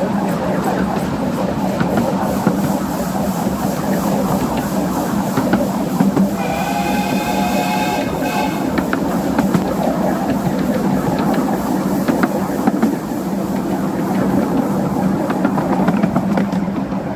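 Miniature railway train carriages rolling along the track with a steady rumble and the click of the wheels over rail joints. About six seconds in, the steam locomotive's whistle sounds once for about two seconds.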